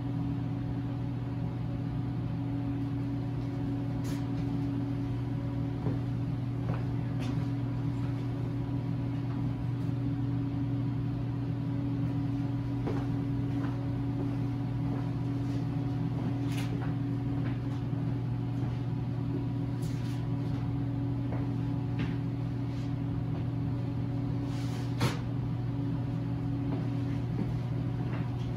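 Steady low machine hum running unchanged, with a few faint clicks and taps scattered through it; the sharpest comes near the end.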